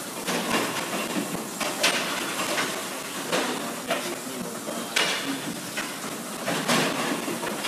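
Goat milking parlour machinery hissing in short regular bursts of air, about every second and a half, over a steady mechanical background noise.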